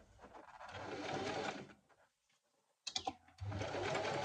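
Electric sewing machine running in two short bursts of stitching, each about a second long, with a pause and a few sharp clicks between them.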